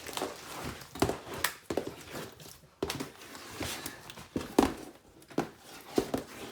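A big batch of thick slime being tipped out of its container into an inflatable pool: irregular squelches, plops and knocks of the container, the loudest about a second in and again past the middle.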